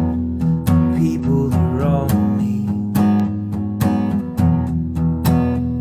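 Acoustic guitar strummed in a steady rhythm, with chords ringing on between the strokes.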